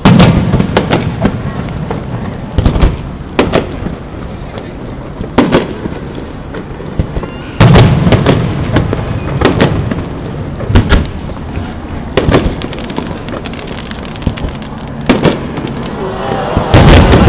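Aerial firework shells bursting overhead in a run of booms and cracks a second or two apart. The heaviest booms come at the start, about eight seconds in, and near the end.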